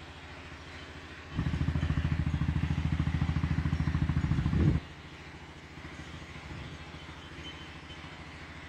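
Boat engine running steadily, suddenly much louder with a fast pulsing beat for about three and a half seconds from a second and a half in, then dropping back to a steady hum.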